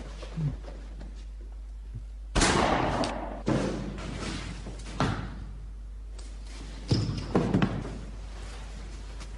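Heavy thuds and slams of a struggle in a film soundtrack. The loudest comes about two and a half seconds in and dies away over about a second, with further hits around five and seven seconds in.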